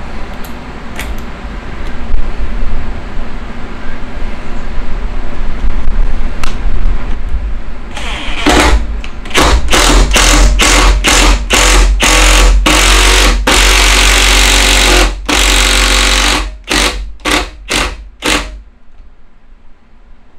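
Cordless drill driving a bit down into a wooden rocking-chair post, run in a series of short trigger bursts with one longer run of about three seconds in the middle, starting about eight seconds in and stopping near the end. Before that only handling noise and a few clicks.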